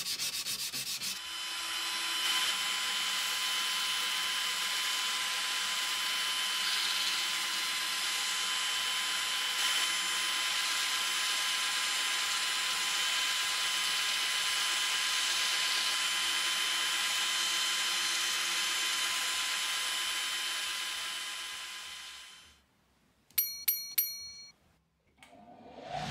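Sandpaper rubbed by hand along a steel scissor blade for about a second. Then a small handheld rotary tool runs with a steady high whine while sandpaper is pressed against its spinning shaft, dying away after about 20 seconds. A few sharp ringing clicks come near the end.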